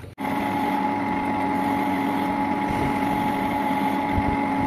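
Metal lathe running with its chuck spinning: a steady machine hum with a constant whine, setting in suddenly at the start.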